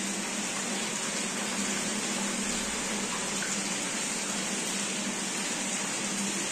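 Water running and splashing steadily into a shallow ornamental pool, with a steady low hum underneath.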